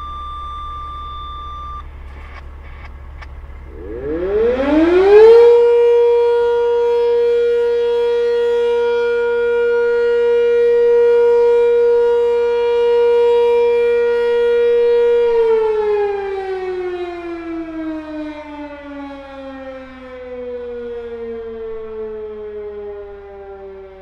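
Sentry 10V outdoor fire siren winding up quickly about four seconds in to a steady single tone, holding for about ten seconds, then winding down with a slowly falling pitch. Before it, steady alert tones stop about two seconds in. A semi-truck's idling engine hums low underneath.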